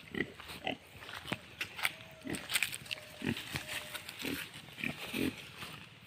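A black-and-white belted Hampshire pig giving short, low grunts, roughly once a second.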